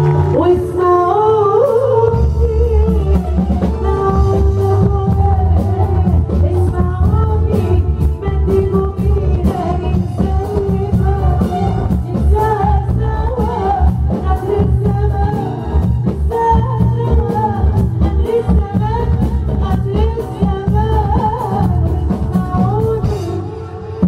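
Woman singing live into a microphone over a band, a strong low beat of bass and drums coming in about two seconds in; the music dips briefly near the end.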